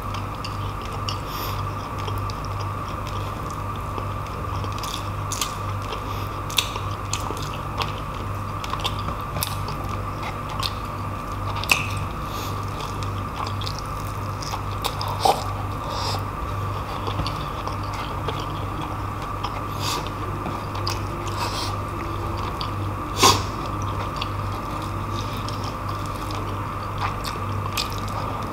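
Close-miked mouth sounds of a person chewing and biting braised pork hock (humba) and noodles, with many small sharp clicks, over a steady low background hum.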